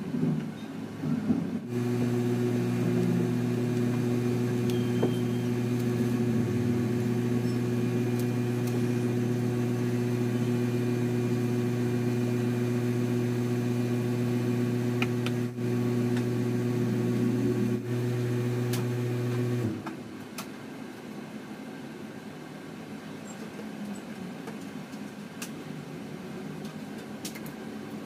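A steady low motor hum of several even tones starts about two seconds in and cuts off suddenly near twenty seconds, leaving a fainter room hum with a few light clicks.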